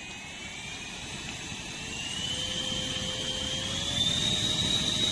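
JISULIFE pocket turbo handheld fan's high-speed motor whining with a rush of air; the whine rises in pitch and gets louder in steps as the fan is turned up through its speeds.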